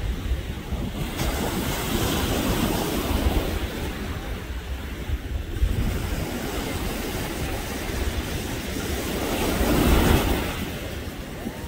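Ocean surf breaking on the beach, with wind buffeting the microphone as a steady low rumble. It swells loudest about ten seconds in.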